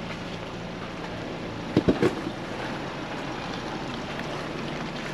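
Ford Bronco crawling slowly over a rocky dirt trail, its engine running low and steady under tyre and gravel noise, with a cluster of sharp knocks about two seconds in as it jolts over rocks.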